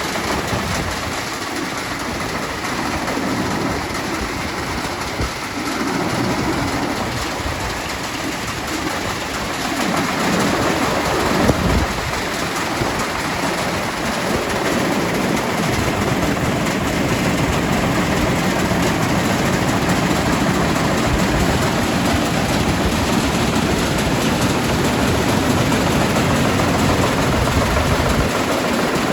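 Clipper grain cleaner running, a steady mechanical rattle, with one sharper clack about halfway through.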